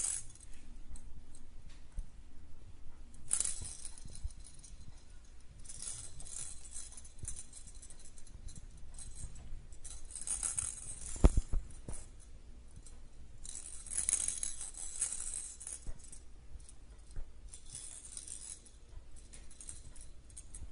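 A small plastic cat toy jingling and rattling in short bursts a few seconds apart as kittens bat it about, with one dull thump about eleven seconds in.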